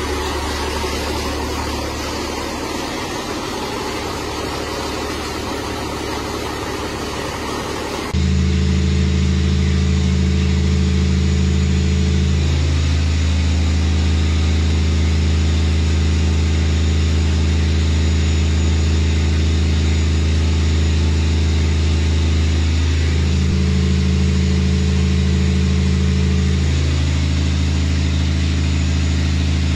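Rebuilt Cummins M11 inline-six diesel running steadily on a test stand under heavy load. About eight seconds in the sound jumps louder and turns into a steady low drone.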